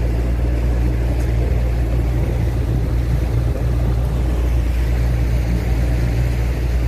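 Small motorboat's engine running steadily under way: a constant low hum with the rush of the ride over it.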